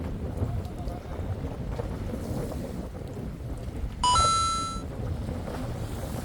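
Steady low rumble of the fishing boat with wind on the microphone. About four seconds in, a short electronic beep sounds for under a second, stepping up in pitch right after it starts.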